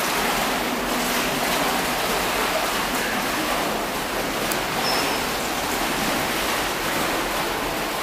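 Steady rushing and lapping of swimming pool water, an even noise without distinct splashes.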